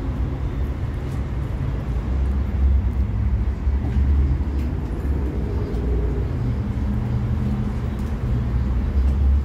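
Steady low engine rumble of road traffic.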